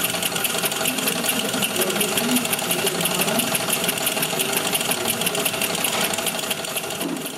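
Old sewing machine driven by a small brass model steam engine, running with a fast, even mechanical clatter.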